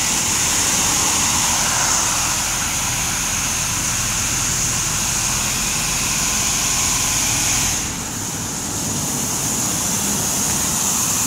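Washworld High Velocity touchless car wash gantry spraying high-pressure water onto a car, a loud, steady hiss over a low machine hum. The hiss drops away about eight seconds in, then picks up again a second later.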